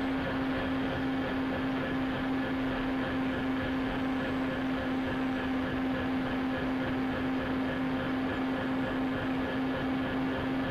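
Electric motors and propellers of a Dynam Skybus DC-3 radio-controlled model plane running at a steady cruise, heard from a camera mounted on the plane: an unchanging whine over a rushing noise.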